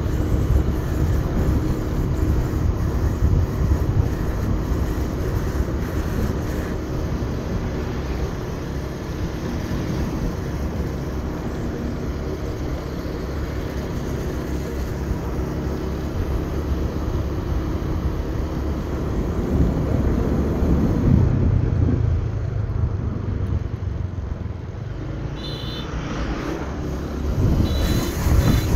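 Motorbike engine running steadily on the move, with low road rumble. Near the end it all grows louder as the bike draws alongside a tanker truck.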